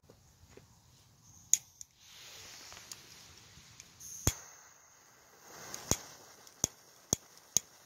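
A hand lighter clicking about six times, sharp single clicks coming faster near the end, with a soft hiss as the fuse of a paper Saturn Rings ground-spinner firework catches and starts to spark.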